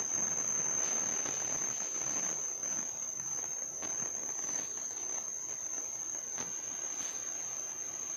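A steady, high-pitched insect trill over a background hiss, with a few faint clicks.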